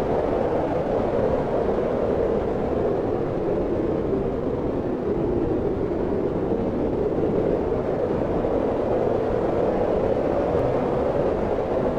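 Steady wind blowing, a low rushing noise that swells and eases slowly.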